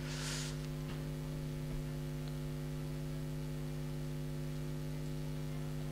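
Steady electrical hum: a low, even buzz with several overtones from the sound system or recording chain. There is a brief soft hiss right at the start.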